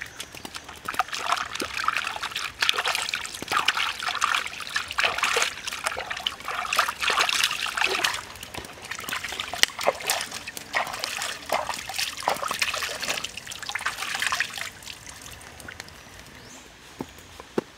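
Hands washing and rubbing in shallow stream water, with irregular splashing and trickling that dies down near the end.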